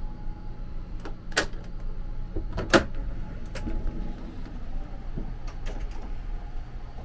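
Sliding door of a sleeper-train compartment being unlatched with its lever handle and slid open, with a few sharp clacks (two loud ones a little over a second apart, the second louder) and lighter clicks after, over a steady low hum.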